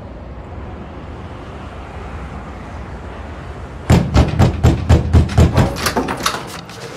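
A low steady rumble, then about four seconds in a quick run of loud knocks on a door, about five a second, lasting about two and a half seconds.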